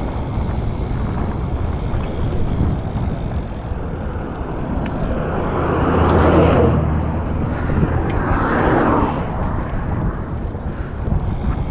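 Road traffic passing close by: two motor vehicles swell up and go past, about six and eight and a half seconds in. Beneath them runs a steady low rumble.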